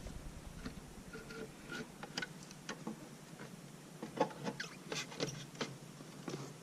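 Faint, scattered light clicks and taps of hard plastic as the RC truck and its plastic body shell are handled, irregular and a little busier in the second half.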